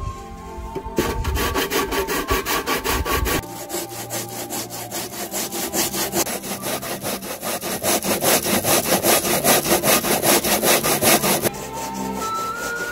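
Peeled cassava root being rubbed hard against a homemade grater of punched metal sheet on a wooden frame. The rasping comes in even strokes, about three a second, starting about a second in and stopping near the end.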